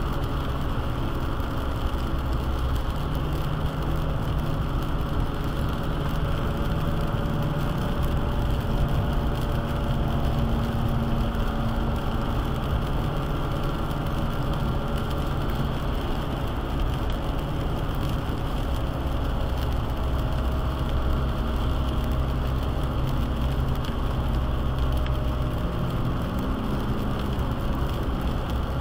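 Steady low road rumble heard inside a car driving a wet highway: tyres on rain-soaked pavement and the engine's hum, with a light hiss of rain.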